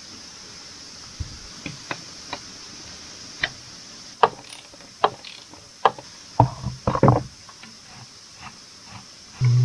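Irregular sharp clicks and light knocks of wiring being handled and connected, with a cluster of heavier knocks about six to seven seconds in and a dull thud near the end.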